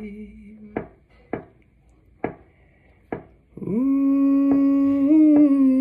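A man singing unaccompanied: a held note tails off, then four sharp clicks come about a second apart in the quiet, then he starts a new long held note that runs on past the end.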